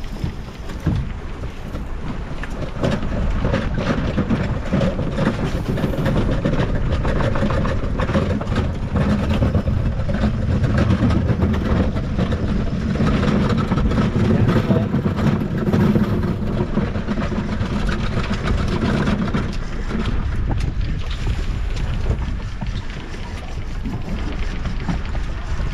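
Steady rushing of wind across the microphone and water around a small fishing boat at sea, swelling about three seconds in and easing near twenty seconds.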